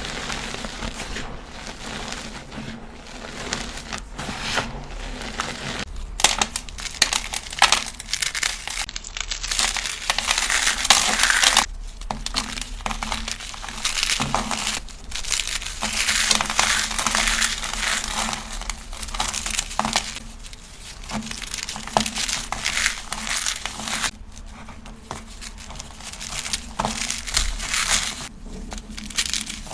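Dyed BSN gym chalk cubes (pressed magnesium carbonate) being crushed and crumbled, a dense, crunchy crackling with a few brief pauses.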